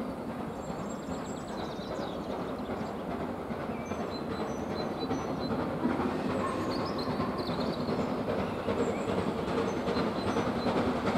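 Steam locomotive chugging as it approaches, its sound growing steadily louder.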